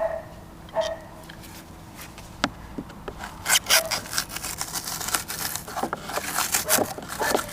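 Scraping and crunching of foam fill being chipped out of a boat's deck cavity with a hand tool, in quick, irregular strokes that come thick and fast from about halfway through.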